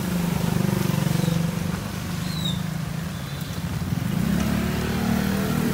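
Small motorcycle-type engine of a motorized tricycle running steadily, heard from inside the plastic-covered sidecar, with a steady hiss of road noise over the low engine hum.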